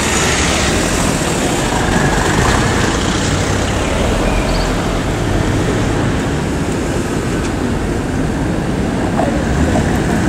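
Street traffic noise: cars driving past, a steady rush of engine and tyre sound.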